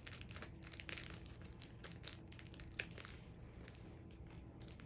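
Faint crinkling and crackling of a small thin plastic packet as it is handled and cut open with scissors to get at a squishy toy, dying down about three seconds in.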